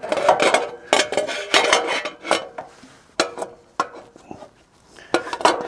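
Steel parts of a wood chipper's discharge chute clanking and knocking together as they are handled and hooked into place, a rapid run of sharp metallic knocks with quieter gaps in the middle.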